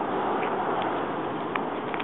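Steady outdoor background noise of a street scene, with a few faint ticks.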